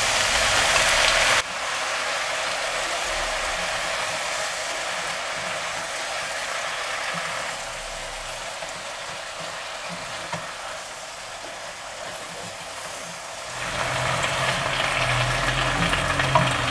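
Stir-fry sizzling in a hot pan of instant noodles, cabbage and meat as mala sauce goes in and the mix is stirred with a spatula. A steady hiss, loudest at first, that drops suddenly after about a second and a half and grows louder again near the end.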